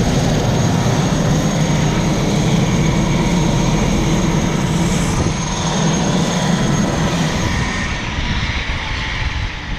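Air ambulance helicopter running on the ground: a steady turbine whine over a low rumble. The high whine fades out about eight seconds in and the sound eases a little.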